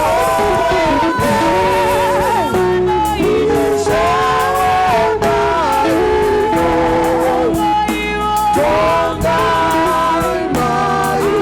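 Gospel song: singing with vibrato over a band with a steady beat.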